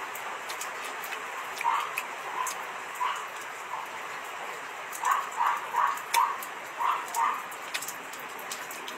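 A dog barking in short, sharp barks: a few scattered ones, then a quick run of about six halfway through, over a steady background hiss.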